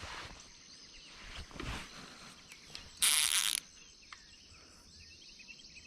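Fishing reel's clicker ratchet buzzing in one short burst, about half a second long, about three seconds in, as line is pulled off the reel by a hooked fish. Faint insects and birds chirp in the background.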